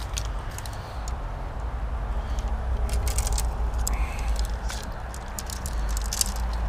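Footsteps crunching and rustling through dry leaf litter and brush: irregular small crackles and snaps over a steady low rumble.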